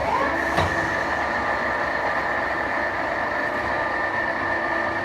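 CNC machine tool running while machining a gate valve part: an even mechanical noise with a steady high whine held throughout.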